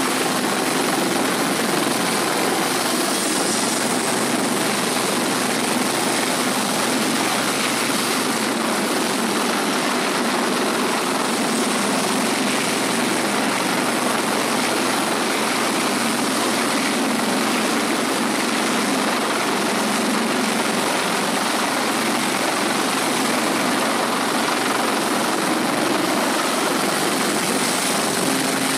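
A Westland Lynx helicopter's rotor and twin turbine engines run loud and steady as it hovers low over a ship's flight deck and sets down near the end.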